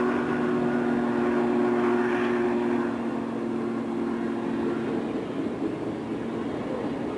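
Steam locomotive whistle held as a steady chord, cutting off about three seconds in and leaving the rumbling noise of the running train.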